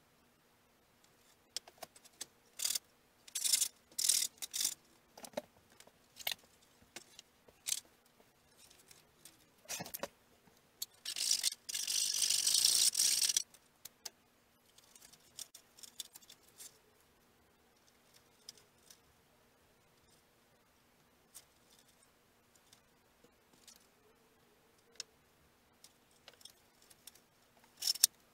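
Workbench handling noises from sheeting a balsa model fuselage: scattered light taps and clicks as balsa strips and small tools are picked up and put down. Near the middle, a hiss lasting about two and a half seconds is the loudest sound.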